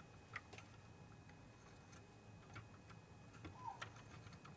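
Near silence: room tone with a faint hum and a few faint, scattered clicks.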